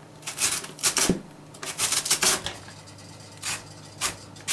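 Handheld cabbage shredder drawn back and forth over a head of white cabbage, its blades slicing off thin strips in a series of quick, crisp scraping strokes: several in the first two and a half seconds, then two more near the end.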